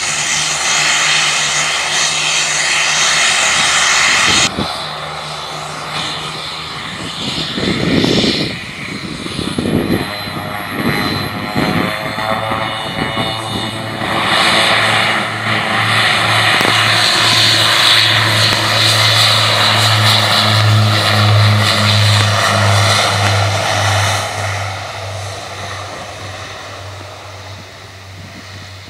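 Twin-turboprop airliner with its engines whining and propellers droning as it rolls along the runway, building to a loud steady propeller hum as it passes close, then fading away.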